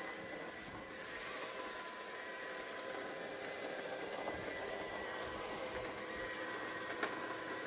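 Cheap toy-grade robot vacuum cleaner running: a steady whirr of its small suction fan and drive motors with a faint high whine, and one light click near the end.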